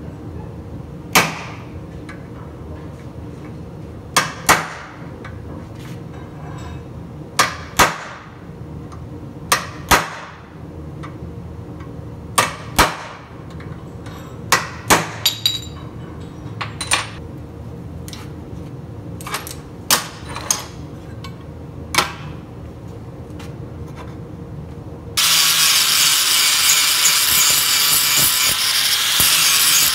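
A hammer striking a steel punch held against a rusty steel parking-brake lever assembly: about eighteen sharp metallic blows, irregularly spaced and often in pairs. Near the end an angle grinder starts and grinds the rusty steel lever loudly and steadily.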